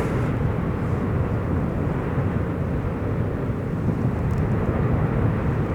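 Erupting Fagradalsfjall volcano giving a steady low rumble.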